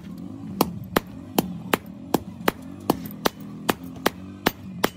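Sledgehammer blows on red-hot leaf spring steel lying on a steel anvil block, struck in a steady rhythm of about two and a half sharp blows a second while the steel is hand-forged into a billhook.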